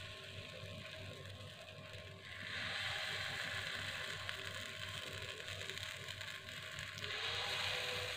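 Kue lumpur batter sizzling as it is poured into the cups of a hot non-stick kue lumpur mold. The hiss swells about two and a half seconds in and again near the end, as each new cup is filled.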